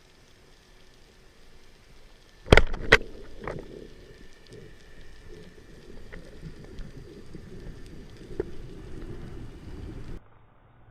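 Two sharp, loud knocks about half a second apart, then a weaker one, followed by an uneven crackling, rumbling noise that cuts off suddenly near the end.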